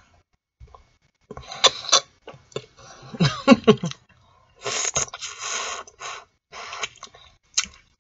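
Close-miked mouth sounds of eating boiled artichoke: biting and scraping the flesh off with the teeth, with wet smacking and clicking in uneven bursts after a near-silent first second.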